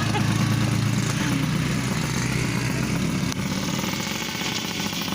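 Motorcycle engine running at steady revs while riding a rough trail.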